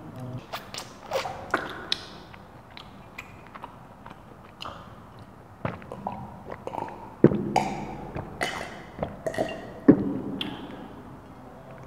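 Close-miked mouth and throat sounds of someone drinking water from a glass jar mug: a string of wet clicks and swallowing gulps, coming thicker and louder in the second half.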